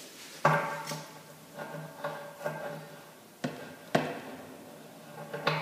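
Brass pipe fittings and a pipe-dope jar being handled and set down: a string of about eight sharp knocks and clinks, some with a short metallic ring.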